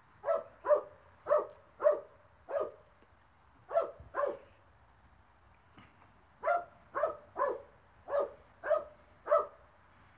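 A dog barking: about a dozen short barks in pairs and threes, with a pause of about two seconds midway.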